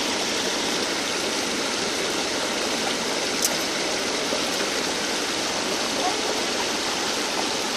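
Steady rush of muddy river water spilling over a low weir of wooden stakes and brush and churning white below it. One brief click about three and a half seconds in.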